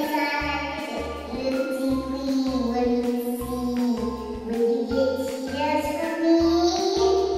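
Music: a held, gliding sung melody over a steady, pulsing bass beat.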